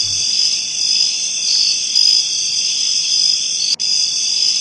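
Crickets chirping in a steady, high-pitched chorus, a night ambience broken by one very short gap near the end.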